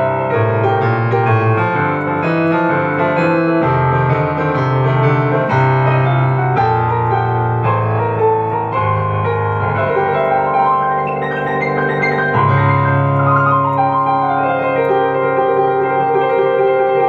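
Upright piano played solo: a steady bass line of held low notes that change about every second, under chords and a melody in the right hand.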